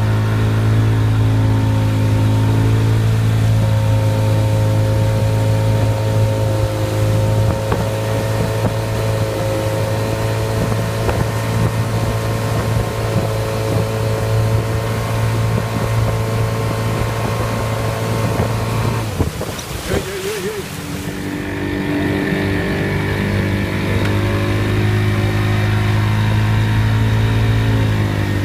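Yamaha 40 outboard motor running steadily under load while towing a wakeboarder, with the rush of water and wind over it. About twenty seconds in the engine tone drops away for a couple of seconds, then resumes.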